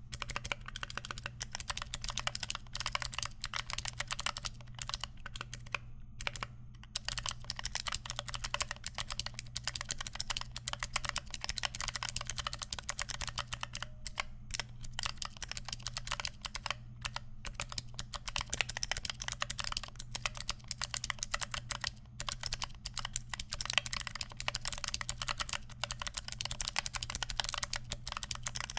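Continuous typing on a custom mechanical keyboard with tactile Pandaristotle switches (Panda housing, Aristotle stem) and DSA keycaps: a quick stream of keystroke clicks, with a couple of brief pauses.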